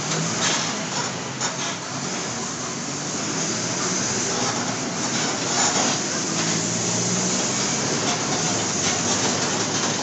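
Diesel engine of a Mercedes-Benz OF-1722 bus running under way, heard from inside the bus, a low drone that grows stronger about two-thirds of the way through. Road noise and body rattles with occasional knocks run along with it.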